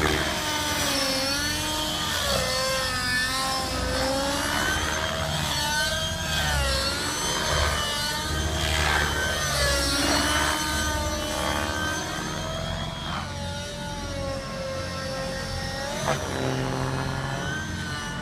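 Radio-controlled model helicopter in flight, its engine and rotor running steadily, the pitch rising and falling again and again as it is flown through manoeuvres.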